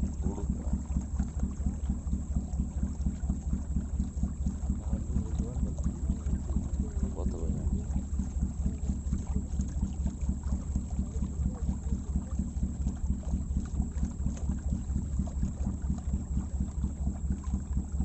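Motorboat engine running steadily, a low, even, fast-pulsing thud that does not change in speed.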